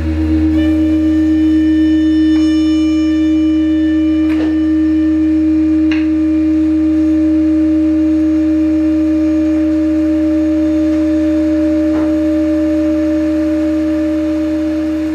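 Live improvised drone music from trumpet and electric guitar with loops: one steady tone held unbroken over a low humming drone, with a few faint ticks.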